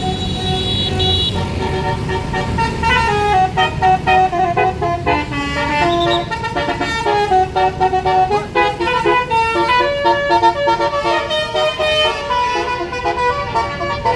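A bus's multi-tone 'telolet basuri' air horn playing a quick tune of changing notes over the low rumble of the bus.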